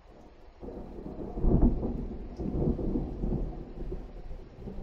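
Thunder: a low rolling rumble that sets in under a second in, is loudest about a second and a half in, and keeps rumbling in waves after that.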